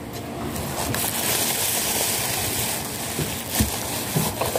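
Plastic bag and wrapping rustling and crinkling as a takeaway food container is unwrapped and handled, with a few soft knocks.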